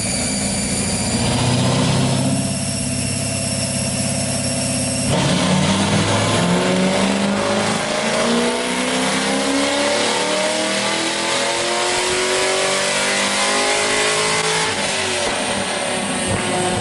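Car engine making a full-throttle power run on a chassis dynamometer. The engine note holds steady for about five seconds, then climbs steadily for about ten seconds as the engine revs out, and drops near the end when the throttle is released.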